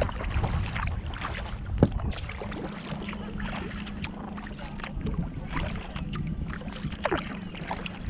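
Kayak paddling: paddle blades dipping and water splashing and dripping in many short, sharp splashes over a low rumble, with one louder knock about two seconds in.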